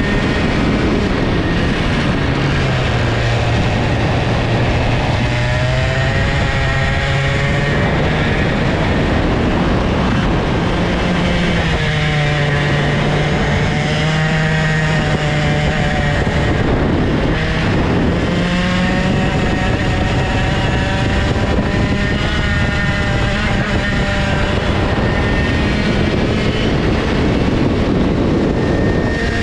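Old IAME two-stroke kart engine on track, heard from the kart itself, its pitch dropping and climbing several times as it slows for the corners and accelerates out of them, over a steady rush of wind and road noise.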